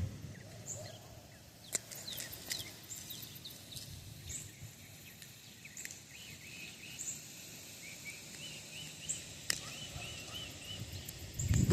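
Small birds chirping with short, high repeated calls, including a quick run of repeated notes in the second half, over faint outdoor background noise, with a few sharp clicks.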